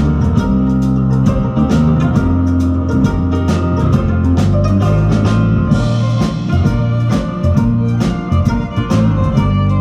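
Music with a steady drum beat over held bass notes.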